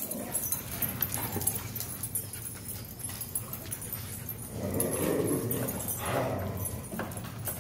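Dogs moving about on a concrete floor, with scattered faint clicks of claws and a general shuffle of movement, swelling a little in the middle.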